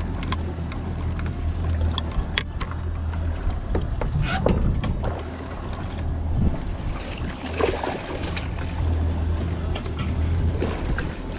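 Boat at sea while a small mahi-mahi is reeled in on a spinning reel: a steady low hum with water sloshing along the hull and scattered sharp clicks. Splashing grows louder about seven to eight seconds in as the fish comes up beside the boat.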